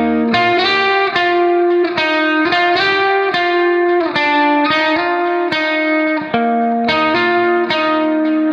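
Background music: a steady melody of plucked notes, several a second.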